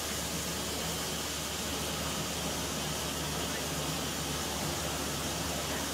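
Steady, even hiss of steam escaping from Peppercorn A1 Pacific steam locomotive 60163 Tornado, with no exhaust beats.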